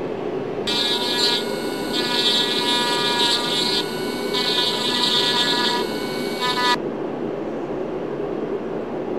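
Cordless rotary tool with a small grinding bit running at high speed on a VW engine bearing shell, smoothing the edges of its oil hole. A steady high whine that grows louder twice as the bit bears on the metal, then dips in pitch and stops about seven seconds in.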